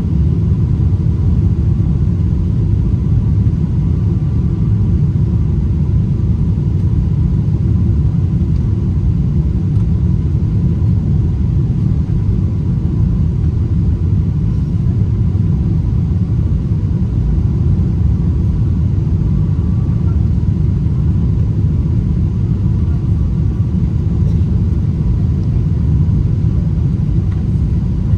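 Boeing 777-300ER cabin noise on final approach, heard beside the wing: a steady low rumble of the GE90-115B engines and airflow over the extended flaps.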